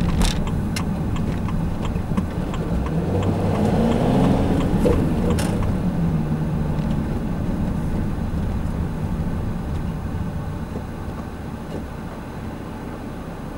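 A vehicle's engine and road noise while driving, the engine pitch dipping and rising about four to five seconds in. It gradually quietens toward the end.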